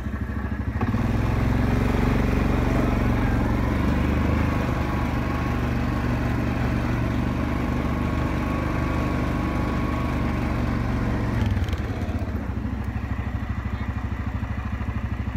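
Vehicle engine running steadily as it drives along a dirt track, then easing back and settling to a lower, steady idle about eleven and a half seconds in.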